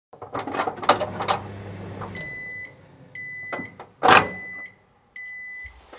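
Microwave oven: a few clicks, then its low running hum, which stops about two seconds in. It then sounds its high end-of-cycle beep four times, about a second apart, with one loud knock about four seconds in.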